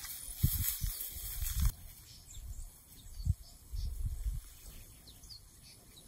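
Outdoor ambience: faint, short bird chirps over low, uneven rumbles of wind on the microphone.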